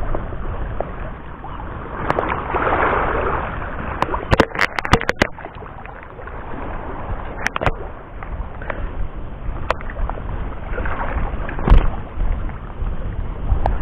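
Wind rumbling on the microphone, with water sloshing at the shallow edge and a handful of sharp clicks, most of them bunched about four to five seconds in.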